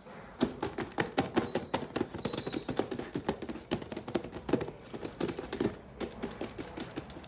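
A fast, irregular run of light clicks and taps from small plastic toy pieces being handled, a few strikes a second.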